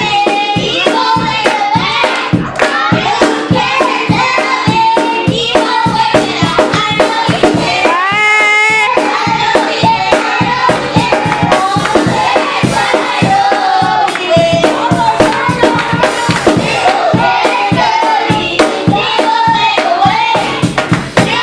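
Children's choir singing over a steady beat of hand claps and percussion.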